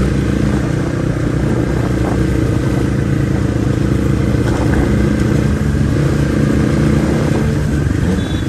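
Motorcycle engine running steadily at low street speed, heard from on the bike.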